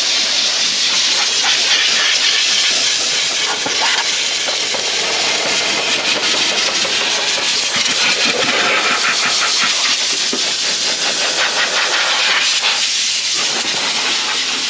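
Compressed-air blow gun on a workshop air line, blowing a long, steady hiss into a car's wheel well to drive out water left from steam cleaning.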